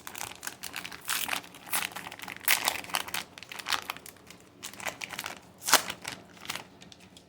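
Crinkling and tearing of a foil trading-card pack wrapper as it is handled and opened, in a run of irregular bursts; the loudest crinkle comes a little under six seconds in.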